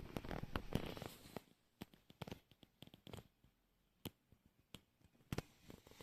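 Hand-handling noises: a second or so of rustling, then scattered light clicks and taps.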